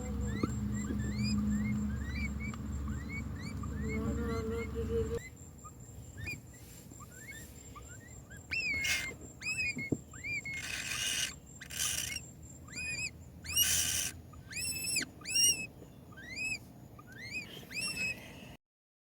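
Nestling birds, taken for baby woodpeckers, giving repeated short chirping calls that rise and fall in pitch, quick and fainter at first, then louder and more spaced in the second half. A few brief rustles come between them. A low hum runs under the first five seconds and cuts off suddenly.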